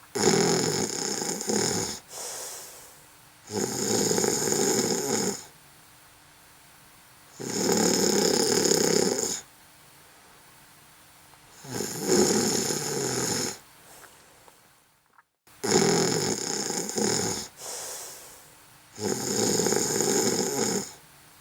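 A sleeper snoring in a steady rhythm: a snore about every four seconds, each lasting about two seconds, with quieter gaps between.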